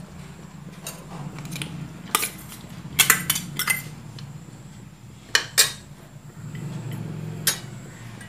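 Steel ladle clinking against a steel bowl and an aluminium pressure cooker while washed dal is scooped into the cooker. Scattered sharp metal clinks, loudest in a quick cluster about three seconds in and a close pair a little after five seconds.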